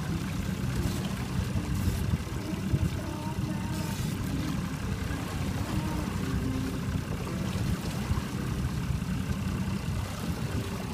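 Fishing boat's engine idling, a steady low rumble.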